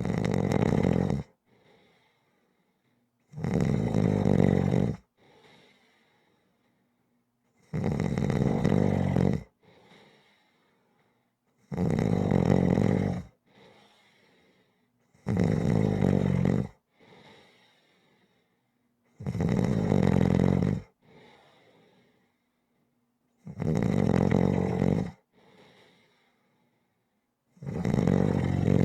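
A person snoring slowly and regularly: a loud buzzy snore about every four seconds, each followed by a short, faint puff of breath.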